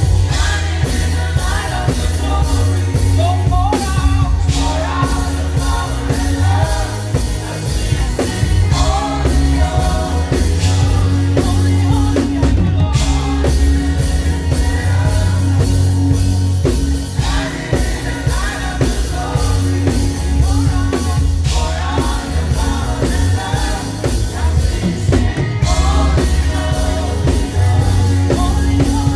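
Gospel praise band playing live: drum kit and a heavy bass line driving a steady beat under singing voices.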